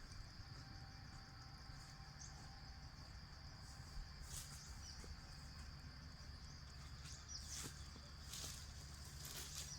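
Faint, steady high-pitched insect drone over a low hum, with a few faint ticks and short chirps in the second half.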